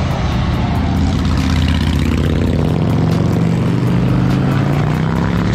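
A vehicle engine running steadily at a low pitch, its tone rising slightly partway through.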